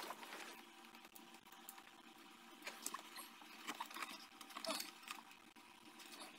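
Faint scattered clicks and rustles of hands working a microphone wire in behind a car's plastic windshield-pillar trim, with one sharp click at the start.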